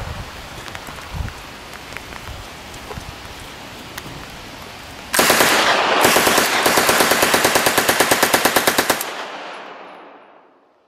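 Full-auto machine gun fire: a long burst of rapid shots, about ten a second, starting about halfway in, with a brief break near its start, then fading out. Before the burst there are only a few faint scattered pops.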